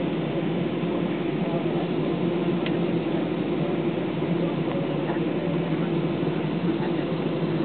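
Steady cabin noise inside an Airbus A320 taxiing after landing: a constant low hum and rush from the engines running at taxi power, with one faint tick near the middle.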